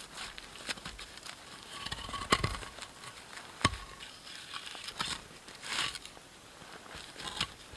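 Long log fire crackling with scattered small snaps and two sharper pops, about two and three and a half seconds in, while the burning logs and embers are tended by hand.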